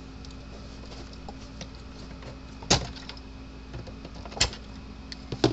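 Sharp clicks and snaps of wire connectors being pulled off inside a fence charger, at irregular intervals, with three loud ones about halfway in and twice near the end, over a faint steady hum.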